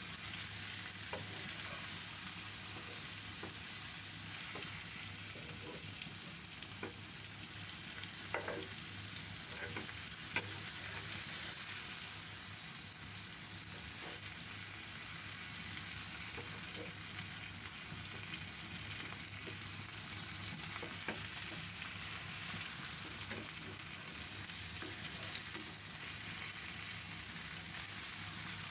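Tandoori-marinated chicken pieces frying in a pan, a steady sizzle of the yogurt-and-spice coating in oil. A few light utensil clicks are heard as the pieces are turned.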